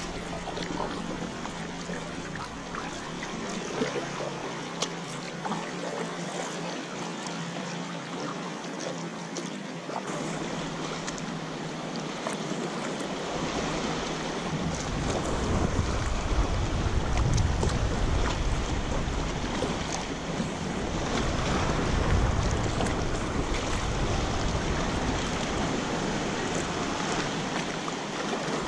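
Sea water lapping and splashing around an inflatable kayak, with wind rumbling on the microphone from about halfway through.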